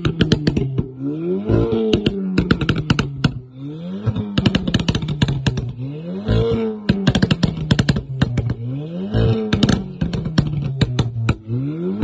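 A Stage 2–tuned Audi S3 8V's turbocharged 2.0-litre four-cylinder is blipped from idle about five times, roughly every two and a half seconds, through its quad exhaust. Each rev rises and falls, then a rapid string of exhaust pops and crackles follows on the overrun, as the tune's pop-and-crackle map intends.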